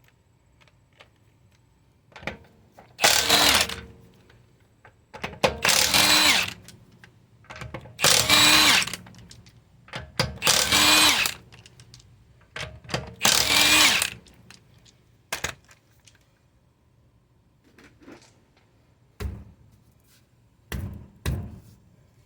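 A power tool fitted with a 17 mm socket runs five times, about a second each, spinning out the wheel's lug bolts; its pitch falls as each run ends. Near the end come a few sharp knocks.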